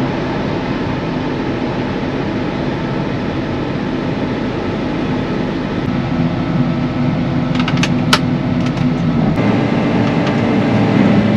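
John Deere tractor running steadily under load, heard from inside the cab while it pulls a disc across a field. A few sharp clicks sound about two-thirds of the way through.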